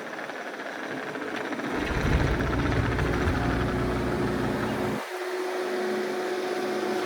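Diesel engine of a Case TR310B compact track loader running steadily. About five seconds in the deep rumble drops away abruptly, leaving a steady hum.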